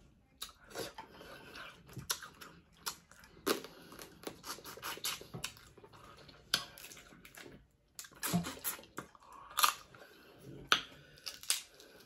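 Dungeness crab being eaten close to the microphone: irregular cracks and crunches of the shell mixed with wet chewing and lip smacking.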